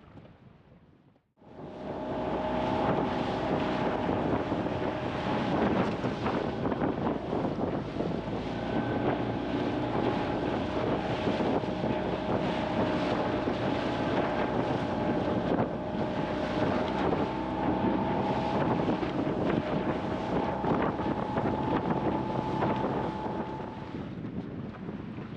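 Small boat's outboard motor running at a steady speed, with heavy wind buffeting the microphone. It starts abruptly about a second in.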